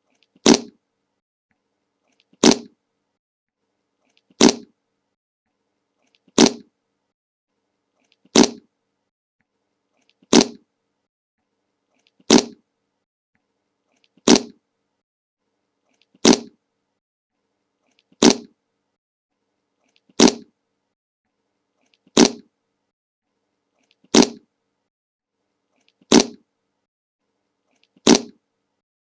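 The same short fart sound effect repeated at even intervals, one brief blast about every two seconds with silence in between, about fifteen times.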